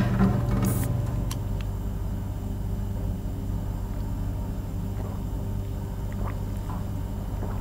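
Drinks vending machine humming steadily and low, with a short sharp rattle and click in the first second and a few faint small ticks later as bottles are handled.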